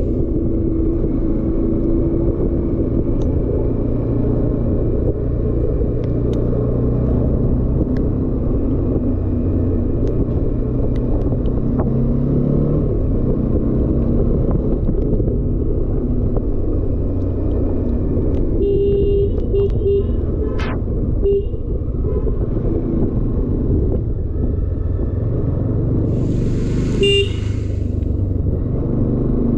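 Bajaj Dominar 400's single-cylinder engine running steadily on the move, with wind rumble on the microphone. A horn gives a quick series of short beeps about two-thirds of the way through, and a horn sounds again briefly near the end.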